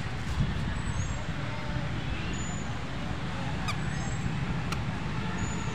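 Outdoor ambience: a steady low rumble of distant traffic, with a few faint bird chirps.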